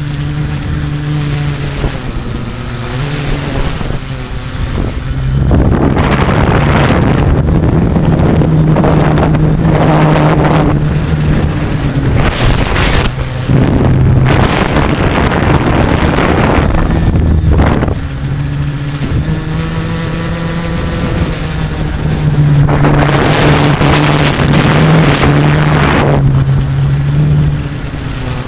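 Multirotor drone's LD Power MT4010 brushless motors spinning 13-inch carbon propellers, a steady hum that shifts slightly in pitch, heard from the onboard camera. Three long stretches of heavy wind buffeting on the microphone drown it out as the drone flies fast and climbs.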